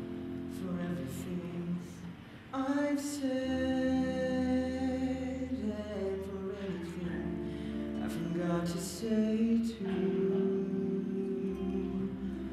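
A male voice singing a slow show-tune ballad in long held notes over instrumental accompaniment.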